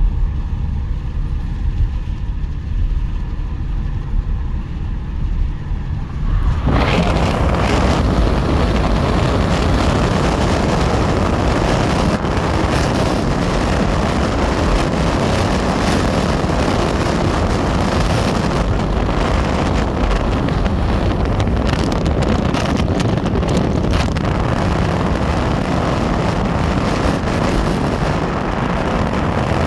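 Diesel locomotive with a freight train: a low engine rumble, then about seven seconds in a loud, steady rushing noise sets in and carries on, typical of a train rolling past close by, with wind on the microphone.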